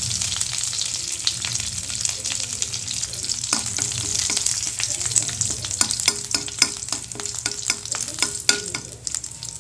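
Garlic cloves and curry leaves sizzling in hot oil with popped mustard seeds, a tempering (tadka) being cooked until the garlic wilts, while a spatula stirs them in the pan. From about three and a half seconds in, the steady sizzle is broken by a run of sharp clicks and crackles.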